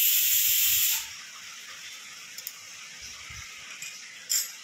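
Hot oil poured onto split mustard, fenugreek and coriander seeds in a steel bowl, sizzling loudly as the spices are tempered (vaghar). About a second in, the loud hiss drops to a faint fizz as the oil bubbles through the seeds, with one brief sharp burst near the end.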